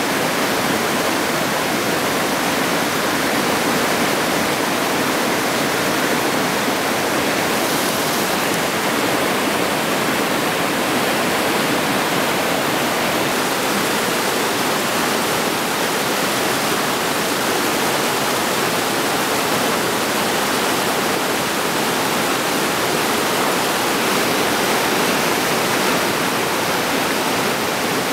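Whitewater rushing over the boulders of river rapids, a steady, even rush of water that never lets up.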